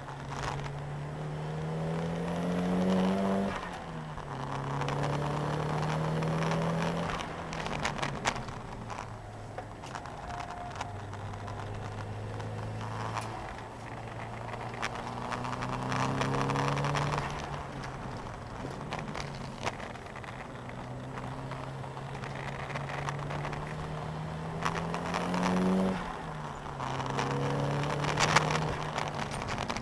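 Nissan 200SX engine heard from inside the cabin on track, the revs climbing through the gears with a sharp drop at each upshift, about three seconds in and again near the end, over road and wind noise with scattered clicks and rattles.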